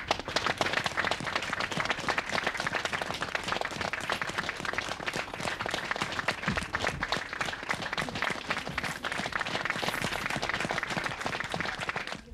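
Audience applauding, dense, steady clapping that cuts off suddenly near the end.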